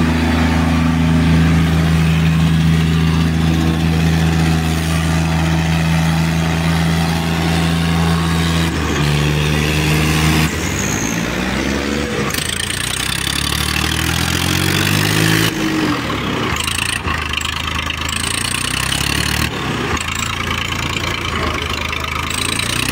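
Diesel tractor engines running at a steady pitch, pulling against each other in a tractor tug-of-war. About ten seconds in the pitch steps and the engine revs up in repeated rising sweeps for several seconds, then runs on less evenly.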